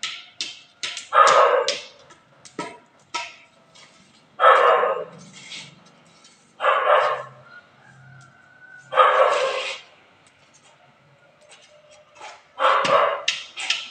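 A dog barking in loud single barks every two to three seconds, with a quick double bark near the end. Short sharp clicks and crackles come in between.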